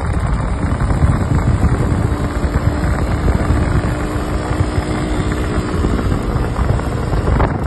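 Yamaha RX 100 two-stroke single running at cruising speed, heard with heavy wind and road rumble.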